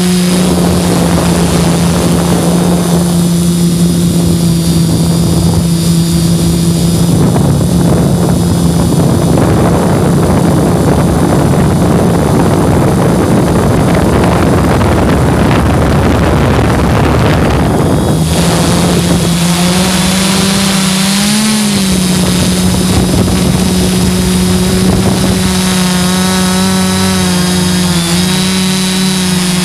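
Hexcopter's six electric motors and propellers droning close to the microphone: a steady hum mixed with wind rushing over the mic. The rush is strongest in the middle. From about 18 s in, the hum comes back clearly and wavers up and down in pitch as the throttle changes.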